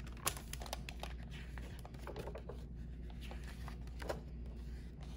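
Paper rustling and small clicks as a picture book is handled and its pages are opened, over a low steady hum.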